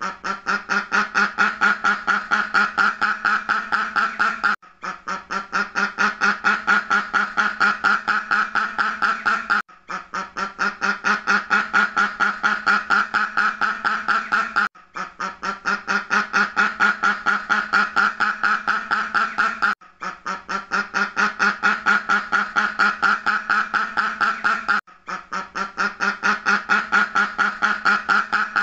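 Duck quacking in a fast, steady run of quacks, several a second, broken by a short gap about every five seconds as the same recording loops.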